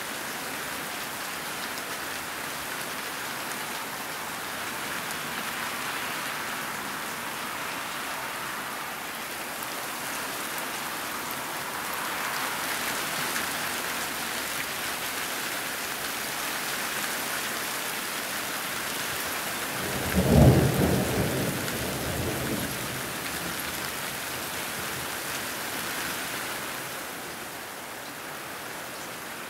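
Steady rain hissing throughout, with one sudden loud clap of thunder about two-thirds of the way through that rumbles away over about two seconds.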